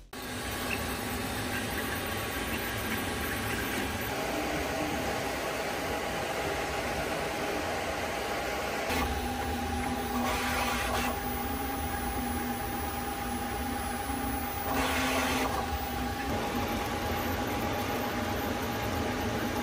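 3D printers running mid-print: a steady whir of cooling fans, with motor whines that shift pitch in steps as the print heads move. It gets louder between about 9 and 16 seconds in.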